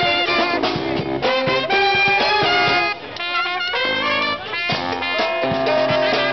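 A peña brass band playing a jazzy tune: trumpets, saxophones including a bass saxophone, with drum hits. About three seconds in the band briefly drops to a quieter passage before coming back in full.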